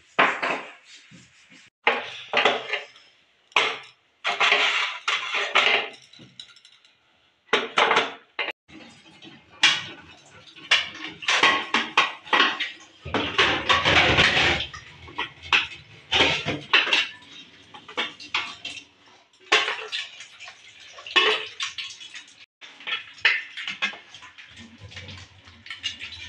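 Plates and steel utensils clattering and knocking against a stainless steel sink as dishes are washed by hand, with the tap running.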